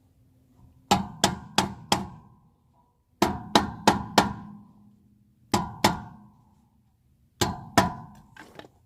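Hammer tapping a hubcap onto a car wheel: groups of sharp strikes, four, then four, then two, then two, with a few lighter taps near the end. Each strike rings briefly with a metallic tone.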